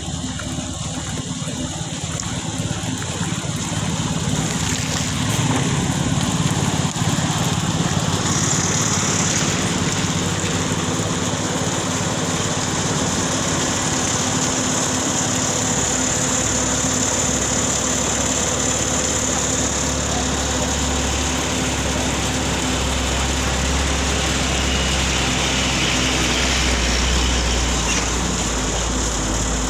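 Heavy diesel engines of a road water truck and an excavator running steadily, with a hiss of water spraying. A deeper engine rumble builds from about twenty seconds in.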